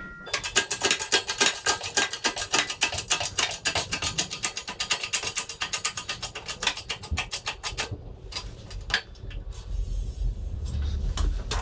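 Shop press working its ram down onto a steel pin to press it into a plate, a rapid, even ratchet-like clicking of about seven clicks a second that stops about eight seconds in, followed by a few single clicks as the ram is backed off.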